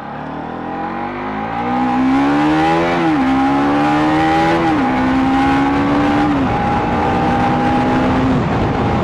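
Vehicle engine accelerating through the gears: the engine note rises, drops at each upshift, four times, and climbs more gently in each higher gear.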